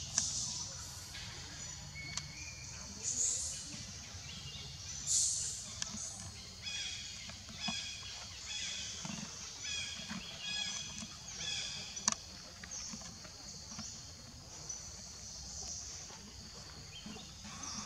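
Forest ambience: a steady high-pitched insect drone, with a run of short, repeated chirping animal calls through the middle.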